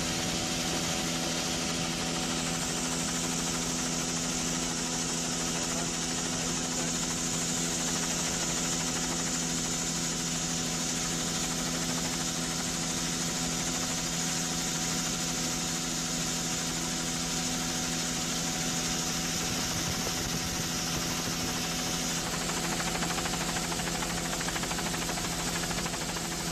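Steady drone of an aircraft's engine heard from on board, holding one pitch throughout, with a hiss of air over it.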